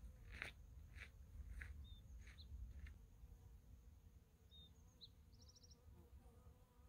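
Near silence: faint outdoor ambience with a low wind rumble. Soft regular clicks, a little under two a second, fade out about three seconds in. A few brief high bird chirps and a quick trill follow.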